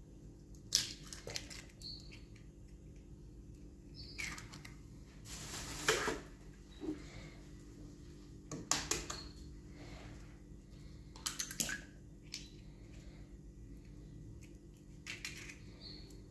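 Eggs being cracked and emptied into a glass bowl: scattered sharp taps and clinks on the glass with crunching eggshell, in separate bursts several seconds apart.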